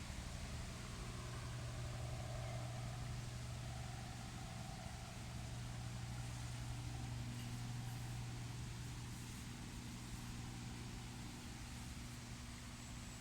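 Steady hiss of falling rain over a low, steady hum.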